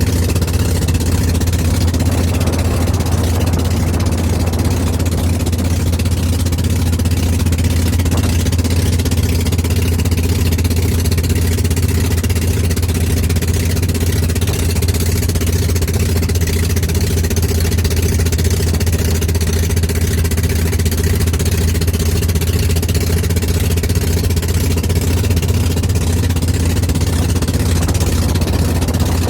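Boat engine running steadily at an even, unchanging pitch with a deep hum.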